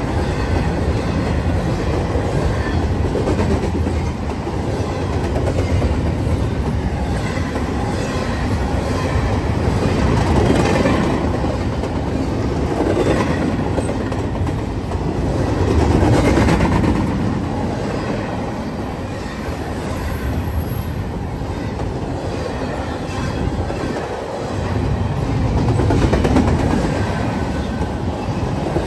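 Norfolk Southern double-stack intermodal freight train passing close by: a steady, loud rush of steel wheels running on the rails, swelling and easing every few seconds as the cars go past.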